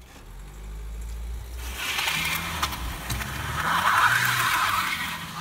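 Car engine straining to pull a caravan up a steep wet lane. From about two seconds in, a loud hiss builds and peaks near the end: the tyres spinning on the wet asphalt as the car loses grip on the climb.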